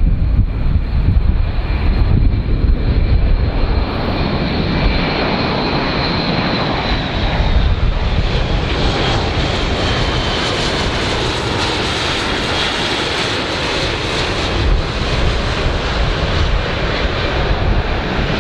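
Airbus A400M military transport flying low past, its four TP400-D6 turboprop engines with eight-bladed propellers droning loudly under a heavy rumble. A high whine sags slightly in pitch around the middle as the aircraft goes by, and the sound turns brighter and hissier in the second half.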